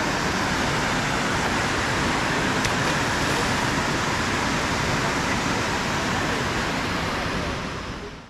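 Steady rush of water pouring over and below a dam, an even noise that fades out near the end.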